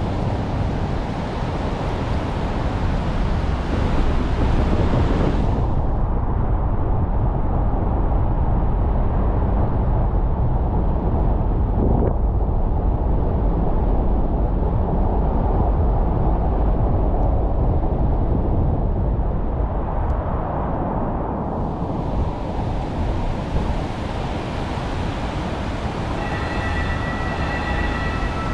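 Car driving on rain-wet city streets: steady road and tyre noise with a deep rumble and the hiss of wet tyres. The hiss fades for a long stretch in the middle and then returns.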